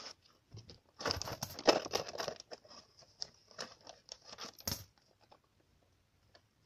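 Paper crinkling and rustling as bills and coins are pulled out through a hole cut in the bottom of a paper piggy bank, densest over the first couple of seconds, then a few scattered sharp clicks.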